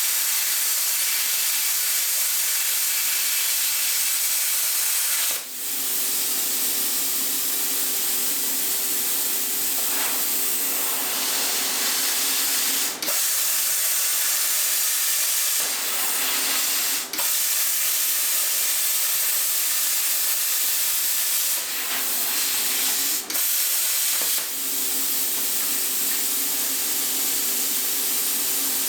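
Plasma cutter cutting stainless steel plate: a loud, steady hiss of the arc and air jet, cut off briefly about five times as the torch stops and restarts. The consumable tip is badly worn and is being dragged on the metal, so the cut goes slowly and takes more effort.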